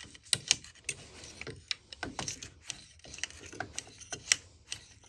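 Vintage ratcheting PVC pipe cutter being worked on a plastic pipe: irregular metallic clicks and ticks from its ratchet pawl and jaws, the sharpest about four seconds in. The ratchet is misfiring, not catching on its teeth.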